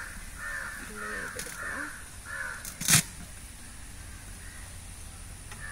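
Crows cawing in a quick run of short harsh calls, about two a second, which stops after about two and a half seconds. About three seconds in comes a single sharp knock, the loudest sound.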